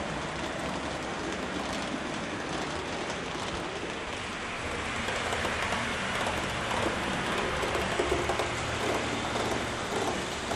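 HO scale model train, a model diesel locomotive pulling double-deck coaches, rolling along the track: a steady rattling hiss of small wheels on rails that grows a little louder about halfway through.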